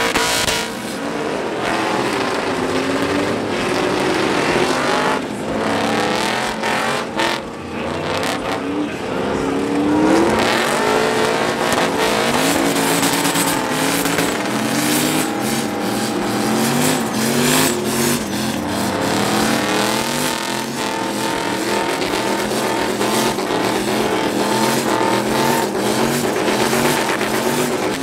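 Pickup trucks doing burnouts: engines revved hard, their pitch rising and falling over and over, above the loud hiss and squeal of spinning tyres.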